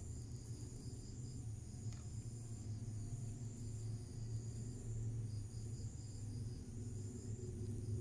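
Crickets chirping steadily in a high-pitched, faintly pulsing trill, over a low steady hum.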